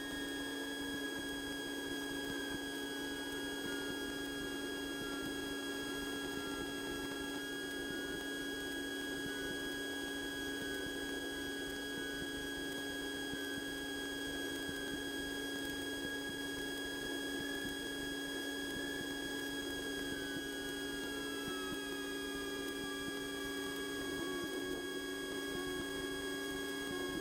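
Steady hum and whine of the Cessna 150's cabin sound picked up through the headset intercom during landing, with several unchanging tones. A fainter whine slides down in pitch about 20 seconds in, as the engine's speed drops.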